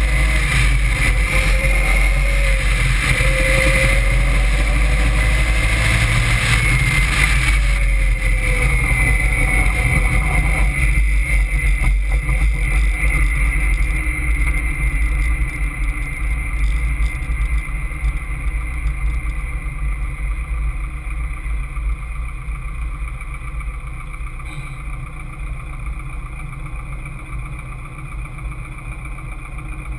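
Caterham Seven's engine heard from the open cockpit at speed, mixed with heavy wind rumble: pulling hard with its pitch rising and falling through the gears for the first several seconds, then easing off and getting steadily quieter for the rest.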